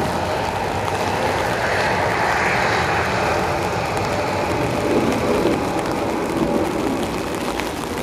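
Boeing 737-300's CFM56-3 turbofan engines running at taxi power: a steady jet rush with a faint hum, in rain.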